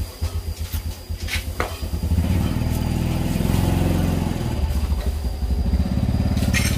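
An engine running steadily, louder from about two seconds in, its pitch rising and then falling back in the middle. A few short scrapes and clicks come early, and a faint steady high tone runs underneath.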